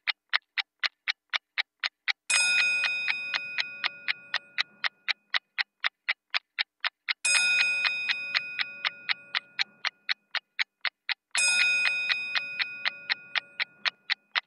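Rapid clock-like ticking, about four ticks a second, with a bright bell-like ding struck three times, each ringing out and fading over a couple of seconds.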